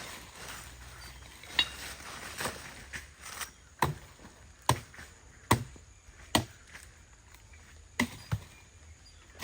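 Wood being chopped by hand: a series of about eight sharp blows on wood, roughly one a second.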